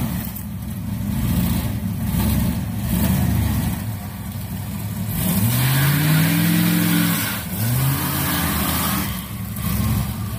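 1975 Chevrolet Caprice's 454 big-block V8 idling, then revved about five seconds in, its pitch rising and falling over roughly two seconds, with a shorter blip just after. The engine is freshly tuned after a carburettor rebuild, distributor overhaul and new plug wires.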